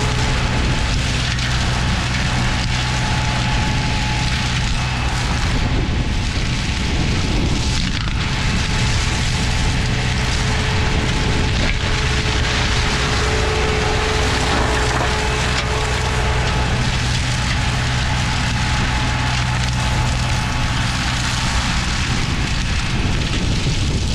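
Green Climber LV600 remote-controlled tracked mower, its Kohler engine running steadily under load while the flail mulching head shreds brush and small wood in a continuous, loud, noisy din.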